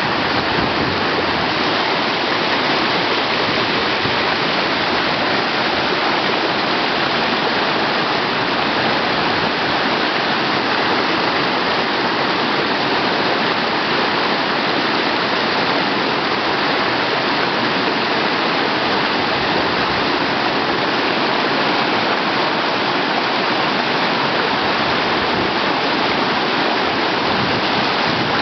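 Steady, loud rush of whitewater pouring and churning through a whitewater park wave, with the river running at about 1100 cfs.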